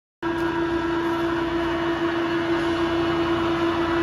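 22" x 72" LeBlond Regal Servo Shift engine lathe running with its empty chuck spinning: a steady hum with a constant whine from the headstock gearing.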